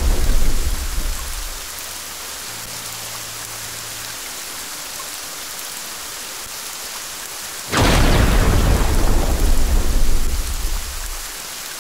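Thunderstorm: steady rain hiss with thunder, one rumble dying away in the first second or so, then a sudden loud clap about eight seconds in that rolls on for some three seconds.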